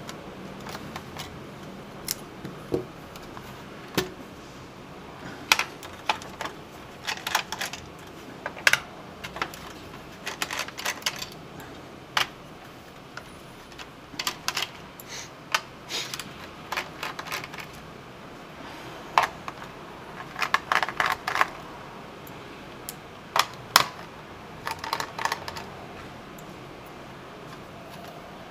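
Small screwdriver clicking and tapping on screws and on the plastic bottom case of a Dell Inspiron 1525 laptop as its screws are taken out. The clicks are sharp and irregular, some single and some in quick clusters.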